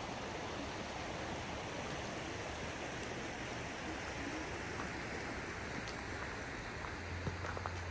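Mountain stream running steadily over rocks, an even rush of water. A few faint clicks come near the end.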